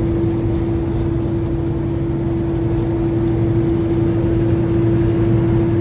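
Semi truck running, a steady drone of engine and road noise: one constant hum over a low rumble, with no change in speed.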